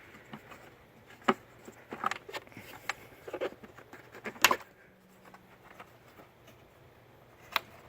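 Air filter housing on a 2000 Nissan Maxima being closed up: a handful of separate clicks and knocks as the box is seated and its two metal clips are snapped shut, the loudest about halfway through.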